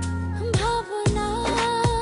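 South Asian pop duet song: a gliding melody line over steady bass and a regular drum beat.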